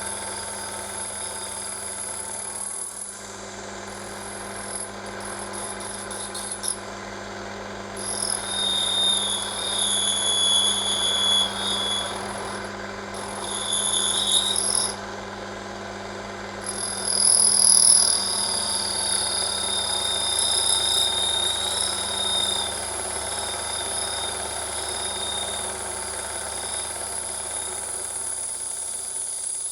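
Small metal lathe running while the cutting tool turns a brass part, the brass giving off high-pitched screams that come and go over the steady motor hum, loudest about ten, fourteen and eighteen seconds in.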